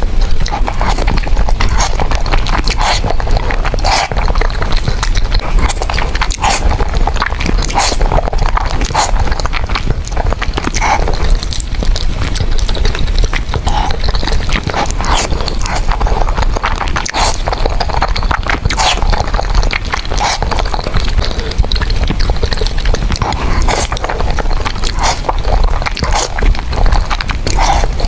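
Close-up eating sounds: chewing with a steady run of short mouth clicks and smacks.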